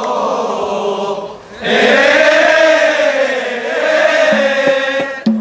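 A group of men chanting a football terrace chant in unison, holding long drawn-out wavering notes. The chant dips briefly about a second and a half in, then comes back louder.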